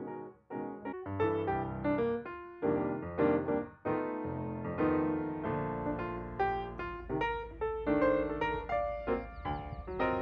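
Background piano music: a melody with chords, notes struck and left to ring.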